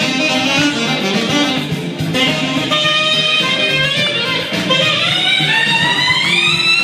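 Saxophone playing a lively melody of short notes, then gliding upward about four and a half seconds in to a long held high note.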